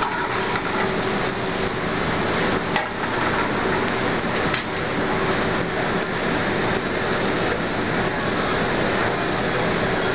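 Food sizzling in a hot frying pan: a steady, rain-like hiss with a few small clicks and pops.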